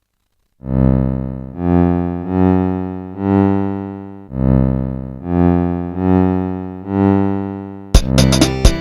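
Polyphonic mobile phone ringtone played on a Nokia 215: after a brief silence, a slow melody of about eight sustained synth-keyboard notes, each swelling and fading. Near the end another ringtone begins with quick, sharp plucked notes.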